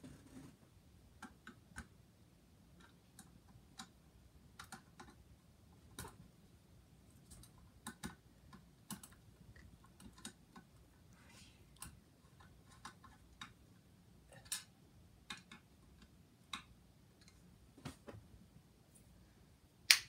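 Faint, scattered clicks and light taps, irregular and a second or so apart, with one sharper click near the end: hand work fastening a blade onto a ceiling fan.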